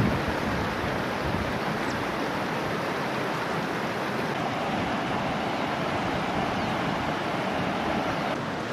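A fast river rushing over rocks in rapids: a steady hiss and roar of whitewater.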